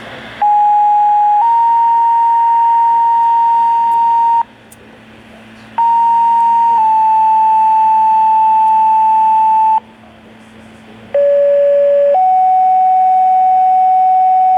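Two-tone sequential fire-department pager alert tones received over a radio scanner speaker, three pages in a row. Each page is a steady tone of about a second followed by a longer tone of about three seconds at a different pitch, with radio hiss in the short gaps between them. These are the county's pager test activations for its volunteer fire departments and first responders.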